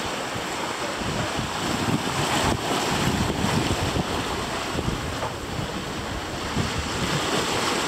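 Steady wind buffeting the microphone over the rushing wash of the sea past a sailing catamaran under way.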